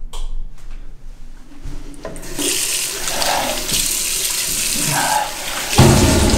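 Water running from a bathroom sink tap, starting about two seconds in, with splashes as it is scooped onto the face. Near the end a sudden loud low boom comes in.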